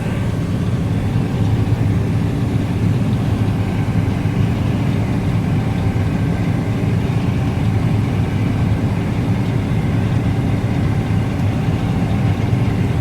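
Combine harvester running steadily while harvesting wheat: an even, unbroken engine and machinery drone.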